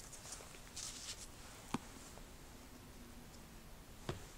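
Faint handling sounds over quiet room tone: a light rustle about a second in, then two soft knocks, the second near the end, as a hardcover book is closed and set down on a wooden pulpit.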